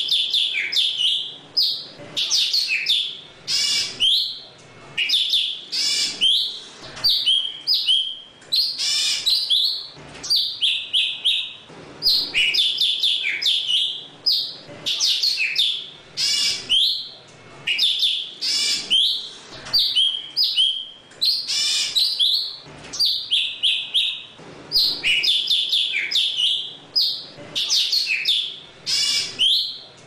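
Golden-fronted leafbird singing to call its flock: a fast, varied stream of high chirps and whistles in short phrases, one after another with brief pauses between them.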